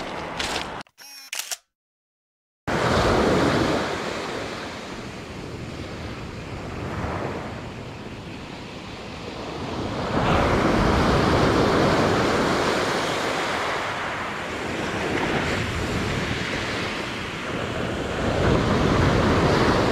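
Sea surf on a pebble beach: waves breaking and washing up the shore, rising and falling in slow swells, after a second or so of dead silence near the start.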